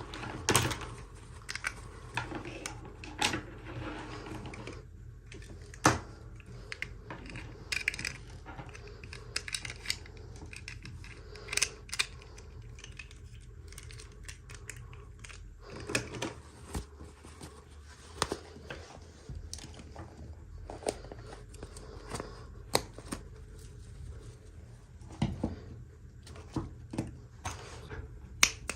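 Toy packaging being handled and opened by hand: irregular clicks and taps with a few short rustling stretches.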